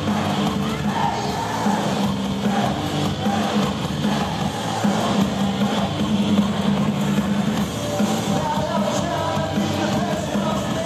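A live band playing a song with a drum kit, sounding dense and continuous.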